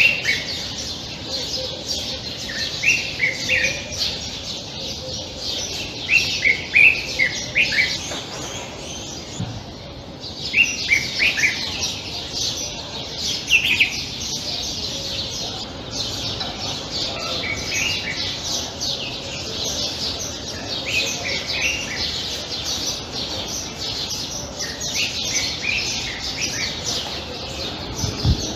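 Common bulbul (Egyptian bulbul) singing short bright phrases of a few quick notes, repeated every few seconds, over a constant high twittering of other small birds.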